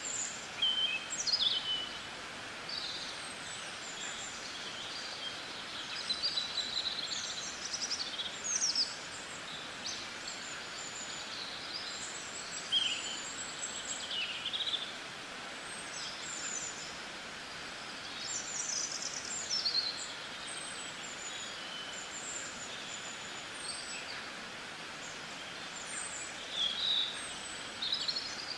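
Small birds chirping and twittering in many short, quick calls, some sliding up or down in pitch, over a steady background hiss.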